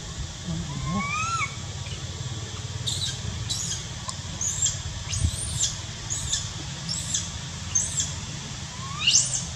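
A string of short high-pitched animal chirps, roughly one to two a second. There is a brief rising call about a second in and a louder squeal that sweeps sharply upward near the end.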